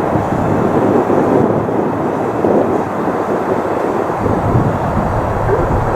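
Whelen WPS-3016 rotating electronic outdoor warning siren sounding its loud test tone.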